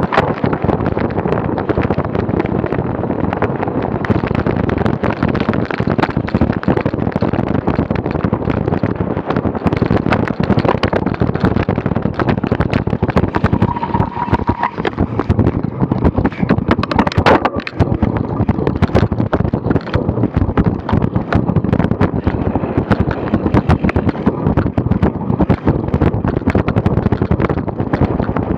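Wind buffeting the camera microphone, with the dense crackling rattle of a cyclocross bike ridden hard over rough grass and dirt. A short, steady high tone sounds briefly about halfway through.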